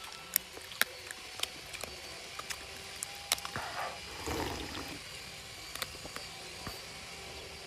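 Scattered sharp clicks and taps over a steady hiss, with a short rustle about four seconds in.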